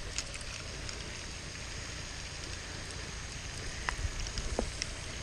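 Steady hiss of a pond fountain's spray falling back onto the water, with a few light plastic clicks about four seconds in as a fish scale's clip is handled.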